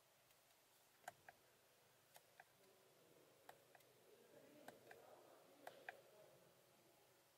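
Faint clicks of a car's steering-wheel buttons being pressed, about ten in all, several in quick pairs, as the instrument-cluster menu is scrolled; otherwise near silence.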